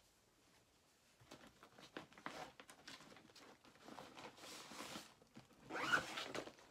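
Cross-stitch fabric in a yellow embroidery hoop being handled: rustling with small clicks and knocks, starting about a second in and loudest near the end.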